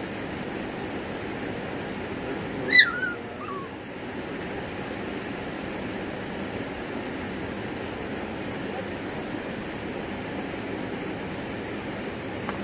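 Steady outdoor rushing noise, with one short, high call about three seconds in that falls in pitch.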